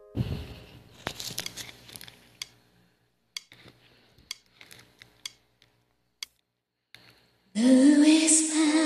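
Scattered clicks and rustles of a headset microphone cable being handled, with stretches of dead silence between them. About seven and a half seconds in, loud karaoke backing music comes in.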